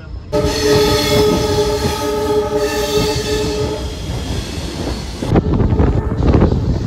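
Train horn sounding one long steady blast of about five seconds. It cuts off near the end, leaving the rumble and clatter of the moving train.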